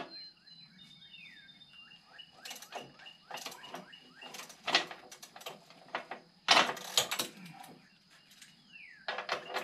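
Metal clanks and rattles in short, irregular bursts from hand work on a finish mower's metal parts during a rebuild, the loudest about five and seven seconds in. Small birds chirp in the background.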